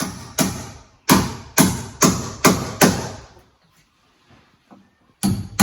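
Hammer striking wood, likely driving nails: a run of about six sharp blows at a little over two a second, a pause, then two more blows near the end.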